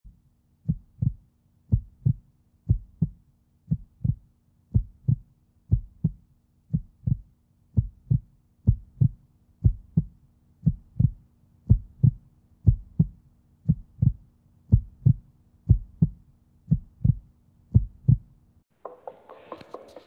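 Heartbeat, a steady lub-dub of paired low thumps about once a second over a faint hum, stopping about a second and a half before the end.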